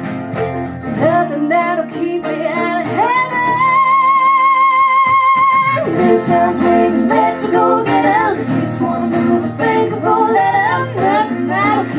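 Live country music: a woman singing over acoustic guitar, holding one long note with vibrato a few seconds in.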